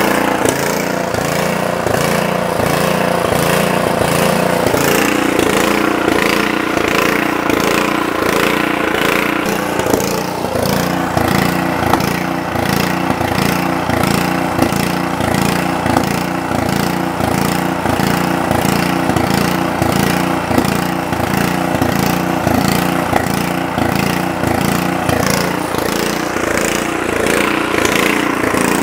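1986 Troy-Bilt rear-tine tiller's gasoline engine running steadily, with the tines turning on the freshly repaired PTO and tine gear assembly. The sound shifts about ten seconds in and settles into an even, regular beat.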